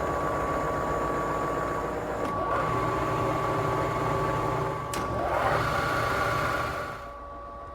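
Shizuoka VHR-A milling machine running: a steady motor and gear drone with a constant whine. A few sharp clicks come a couple of seconds apart, with brief rising whines, and the sound drops to a lower level near the end.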